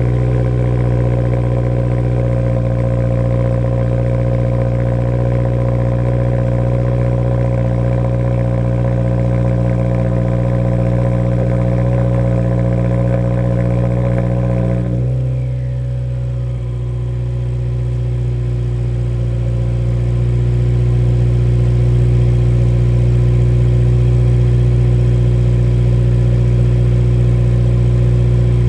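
Subaru WRX's turbocharged 2.0-litre flat-four idling through its quad-tip exhaust, a steady drone. About halfway through the tone changes: the higher notes fall away with a brief dip in level, then the idle carries on lower and a little louder.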